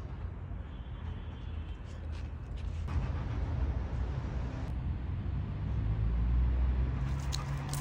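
Low, steady rumble of a motor vehicle running, growing louder from about three seconds in, with a low engine hum near the end.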